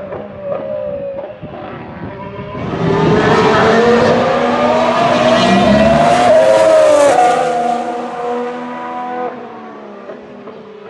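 Ferrari Formula 1 car's 1.6-litre V6 turbo-hybrid engine on track. Revs fall at first, then the engine grows louder with revs climbing for several seconds, drops a step around the seven-second mark, and fades away near the end.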